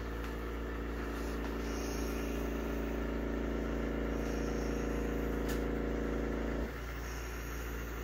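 Light 'N' Easy robot vacuum cleaner running, a steady, rather quiet motor hum with several steady tones. The tones cut off suddenly near the seven-second mark while a low hum goes on.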